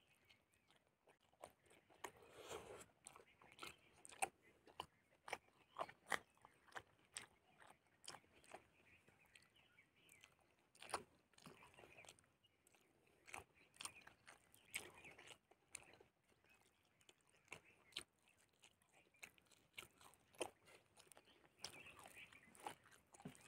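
A person eating boiled fish and rice by hand, chewing close to the microphone: many short, irregular mouth clicks and smacks as he bites and chews.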